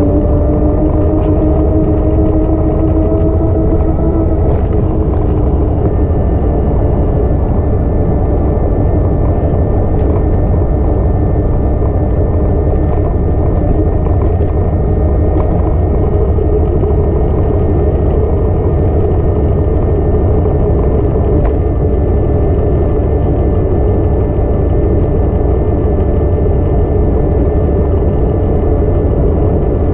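Steady wind rumble on a moving action camera during a ride, with a whine of several tones that rises slightly in pitch over the first few seconds and then holds steady.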